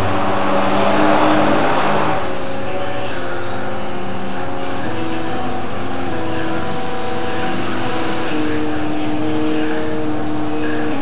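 Stepper motors of a hot-wire CNC foam cutter whining as the machine runs a cut, the tones jumping to new pitches every second or so as the axes change speed. A hiss sounds over them for the first two seconds.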